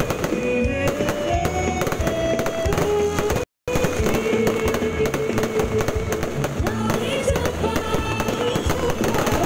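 Aerial fireworks bursting in rapid, crackling bangs, with music of held notes playing underneath. The sound cuts out for a moment about three and a half seconds in.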